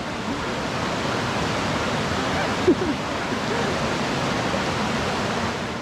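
Shallow mountain river rushing steadily over rocks, with one short brief sound a little under three seconds in.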